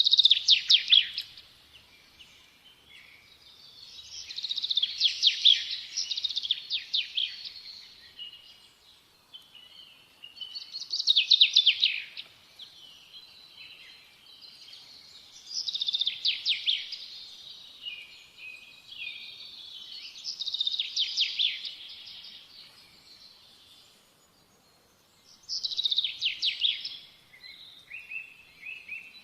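A small songbird singing: repeated phrases of quick, high chirps and trills, a few seconds each, starting again about every five seconds.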